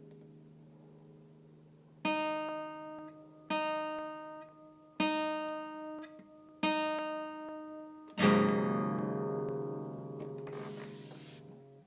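Solo acoustic guitar music. A fading chord gives way to the same plucked chord struck four times about a second and a half apart, then a fuller strummed chord about eight seconds in that rings out.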